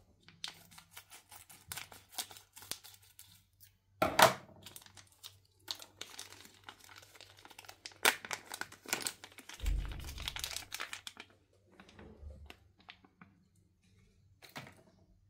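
Plastic toy wrapper crinkling as it is cut and torn open with scissors, with a couple of louder crackles about 4 and 8 seconds in and a dense stretch of crinkling near 10 seconds, then only faint handling.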